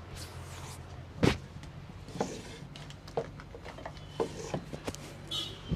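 Scattered knocks and taps, one louder thump about a second in, over a steady low hum.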